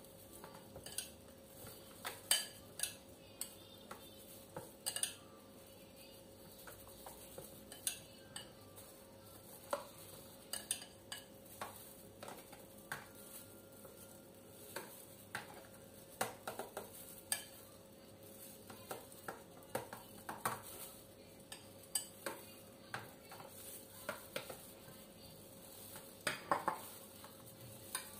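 Metal spoon tapping and scraping against a bowl while scooping and spreading a thick cream and condensed-milk mixture. The taps come irregularly throughout, several in quick clusters.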